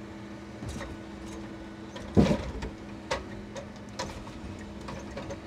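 Timber truck's loader crane setting a heavy wooden log mat down on the load: one loud wooden thud about two seconds in, then a few lighter knocks, over the steady hum of the truck's engine driving the crane hydraulics.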